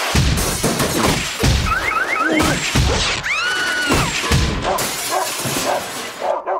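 Cartoon slapstick sound effects: a rapid string of crashes, thuds and smashing, with three quick rising squeaks about two seconds in and a longer whistling glide a little after three seconds.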